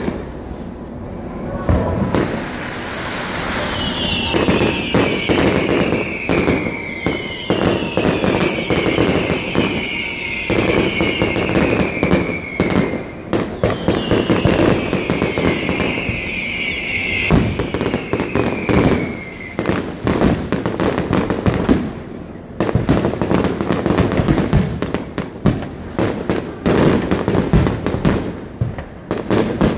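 Fireworks going off in quick succession: a dense run of bangs, pops and crackle from bursting shells. Four long whistles, each sliding down in pitch, sound one after another through the first two-thirds.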